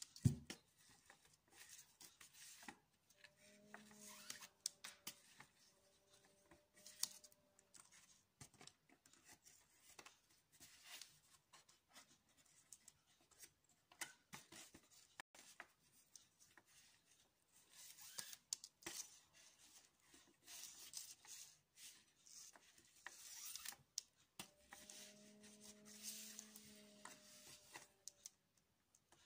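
Faint rustling and small clicks of macrame cord being handled and pulled into hitch knots. A faint low hum comes and goes twice.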